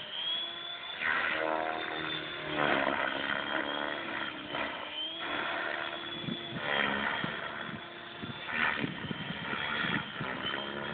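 Align T-Rex 600 radio-controlled helicopter flying 3D aerobatics: its rotor and drive sound swells and fades in waves, with a whine that rises and falls in pitch as the flight moves change.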